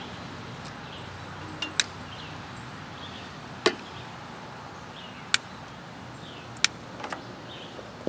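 Wire cutters snipping through melted tractor wiring: four sharp snips a second or two apart, with a couple of softer clicks near the end.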